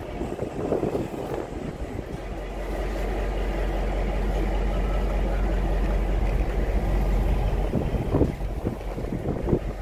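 A heritage train's diesel engines running with a steady low rumble that grows louder through the middle, then eases off near the end into uneven louder sounds.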